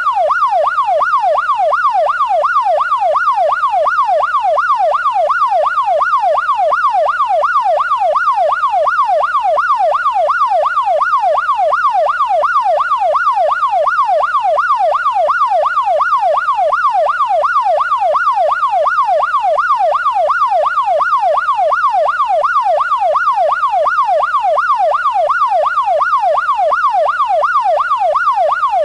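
Police car siren sounding a continuous fast yelp: its pitch sweeps up and down over and over at a steady rate, at an even loudness.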